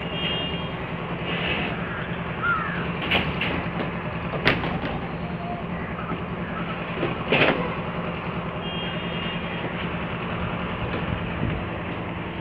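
A steady low machine hum, like an engine or motor running, with a few short sharp knocks.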